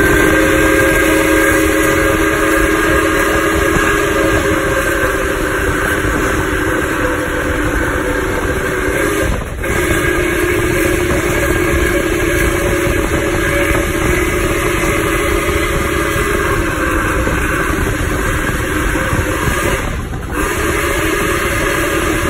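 Steam whistle of Nickel Plate Road 765, a 2-8-4 Berkshire steam locomotive, sounding several notes at once in long, loud blasts. It breaks off briefly twice, about nine and twenty seconds in, and sounds again each time, over the rush of the running locomotive.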